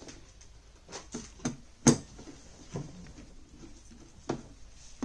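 Scattered metal clicks and knocks from a screwdriver and metal mounting-bracket arm as a screw is driven into the back of a monitor, the sharpest and loudest about two seconds in.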